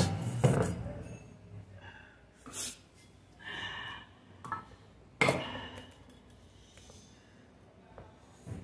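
Knocks, clicks and scrapes of a Toyota Camry electric water pump's aluminium housing and motor unit being handled and fitted together on a bench: a loud knock at the start and a sharp click about five seconds in.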